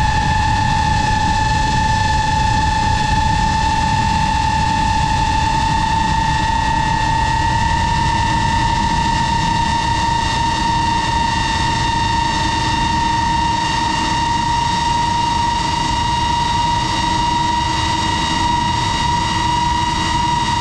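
FPV drone's electric motors and propellers whining steadily, heard from the camera on board, the pitch creeping slowly upward over the seconds, with a rush of wind noise underneath.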